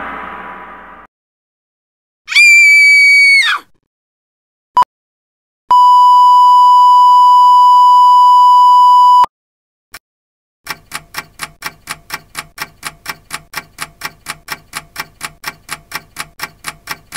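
A string of separate synthetic sound effects. First a high, pitched electronic tone that bends downward as it ends, then a brief blip. Next a steady pure beep held for about three and a half seconds, like a censor bleep, and from about eleven seconds in an even, fast ticking, three to four ticks a second.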